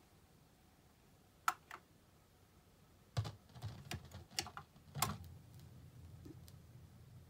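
Mechanical clicks and clunks from a Dual 1009 turntable's tonearm mechanism as the arm swings over the record and lowers. The loudest click comes about five seconds in as the Shure M44MB stylus sets down, followed by faint low groove noise from the lead-in before the music.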